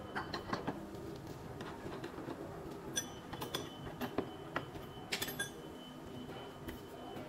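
Scattered light metal clicks and clinks, a few sharper ones about three and five seconds in, as a boring head's taper tool holder is pushed into a milling machine spindle and secured by hand.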